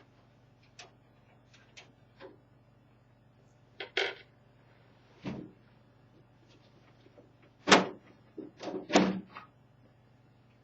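Side panel of a Floston Genesis PC case being opened: scattered clicks and light knocks, then a few louder metal clunks about eight and nine seconds in.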